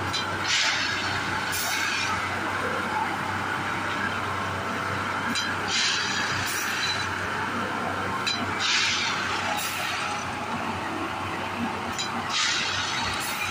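Railway track tamping machine at work: its engine runs with a steady low hum, and short bursts of hissing come in pairs about a second apart, repeating every three to four seconds as the tamping units cycle.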